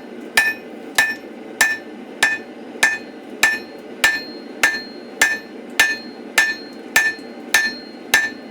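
Hammer blows on hot steel on an anvil, drawing out a laminate bar for a pattern-welded billet: a steady rhythm of strikes about every 0.6 seconds, each with a short metallic ring, over a steady low rush.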